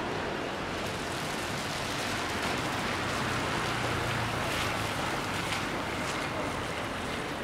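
Steady hiss of rain and tyres on a wet city street, swelling about halfway through as a vehicle passes.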